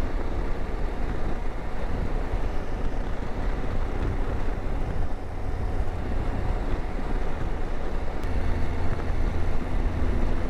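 Motorcycle running steadily at road speed, with a continuous low rumble and wind noise on the microphone.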